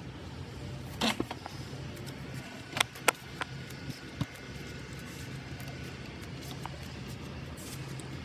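Hand-turned scotch eyed wood auger bit boring into a dead log, with a few sharp cracks and clicks as it bites, the loudest a quick pair about three seconds in. A steady low hum runs underneath.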